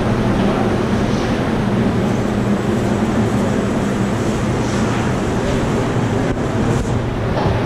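Steady drone of factory machinery running, a continuous low hum with noise over it.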